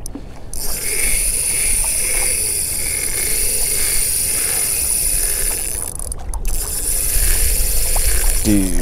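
Shimano Stradic 5000 spinning reel being cranked against a hooked tuna: a steady high mechanical whir that pulses about twice a second with the turns of the handle. It stops briefly about six seconds in, then starts again.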